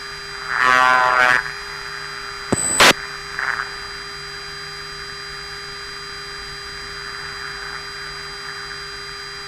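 Steady electronic hum and whine of a fighter jet's cockpit intercom and radio channel. A brief buzzing tone sounds about half a second in, and a sharp click, like a radio key, comes near three seconds.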